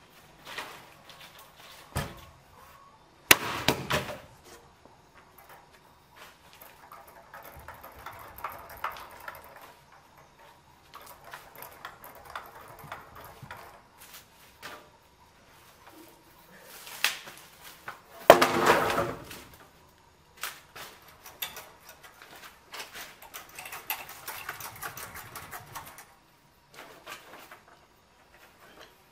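Wooden poles and timber being handled: a few sharp wooden knocks, the loudest about two-thirds of the way through, with rustling and scraping over dry bamboo debris between them.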